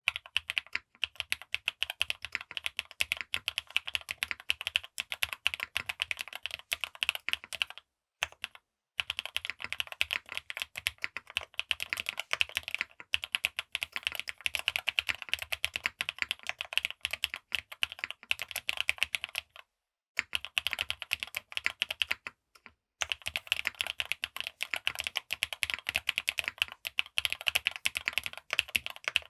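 Fast, continuous typing on a Swagkey Shelby80 custom mechanical keyboard: gasket-mounted aluminium plate, fully foamed case, lubed and filmed linear frankenswitches (Cherry housings with Kailh Cream stems) and PBT keycaps. The typing stops briefly about eight seconds in, around twenty seconds and again near twenty-three seconds.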